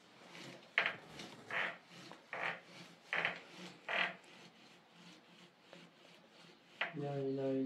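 Fabric being scrubbed by hand in hand-washing of laundry: a run of evenly spaced rubbing strokes, a little more than one a second, that grow weaker after about four seconds. Near the end a voice starts singing.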